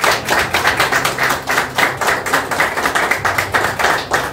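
A small group of people clapping hands, quick uneven claps that stop abruptly at the end.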